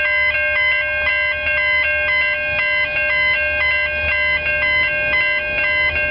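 Background music: a repeating electronic melody of short stepped notes over held tones, with a low rumble underneath.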